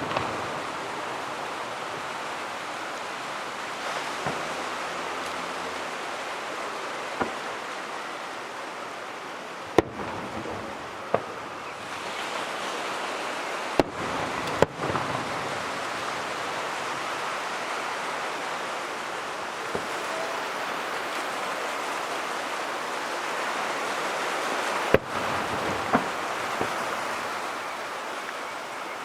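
Fireworks display: about ten sharp booms of shells bursting, irregularly spaced, over a continuous rushing hiss.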